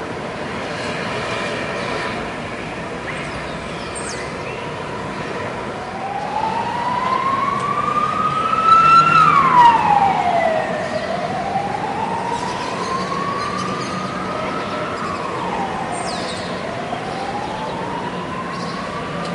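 Emergency vehicle siren wailing from about six seconds in, its pitch sweeping slowly up and down, three rises and two falls, loudest around nine seconds in, over steady background noise.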